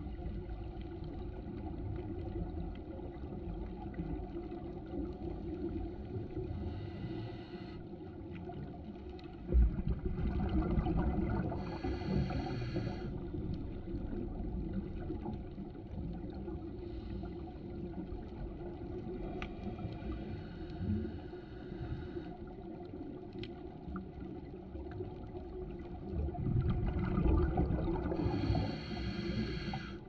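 Underwater scuba breathing: a steady low rumble with the hiss of regulator breaths every few seconds and louder bursts of exhaled bubbles, the strongest about ten seconds in and again near the end.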